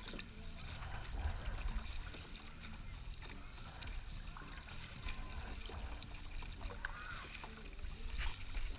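Kayak paddling: paddle strokes with water splashing and dripping, over a low steady rumble.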